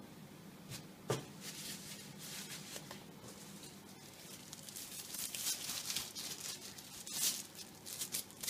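Thin disposable plastic glove crinkling and rustling in quick strokes as it is pulled onto a hand, with a single light knock about a second in.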